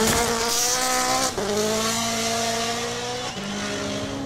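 Hyundai i20 N Rally1 rally car at full throttle on loose gravel, its engine note stepping at gear changes about a second and a half in and again near three and a half seconds, over the hiss of sliding tyres and sprayed gravel as the car slides wide in a save.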